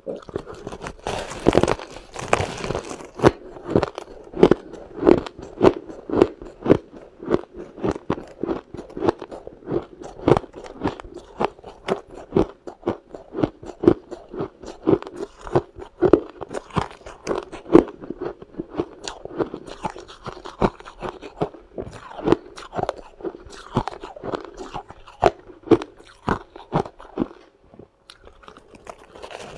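Close-miked crunching of a person biting into and chewing a clump of powdery frost ice. A big bite comes about a second and a half in, then steady crunching chews, two or three a second, easing briefly near the end.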